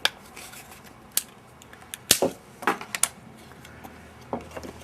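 Scattered sharp clicks and taps, about half a dozen, as an old plastic keycap is worked loose from a wooden Wurlitzer piano key after its glue seal has been scored.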